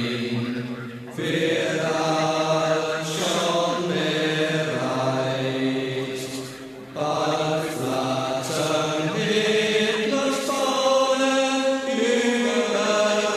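Slow chanting on long held notes that shift pitch every few seconds, dipping briefly about a second in and again about seven seconds in.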